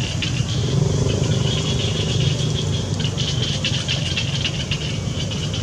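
A steady low engine hum, with a high steady whine above it that grows and fades and scattered faint ticks.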